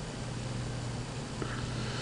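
Steady low hum under an even hiss, the background noise of the recording setup, with one faint click about one and a half seconds in.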